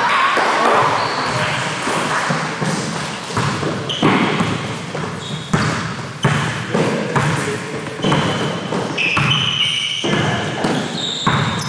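Basketball bouncing on a gym court during a game. Repeated knocks ring in a large, echoing hall over a background of voices and game noise.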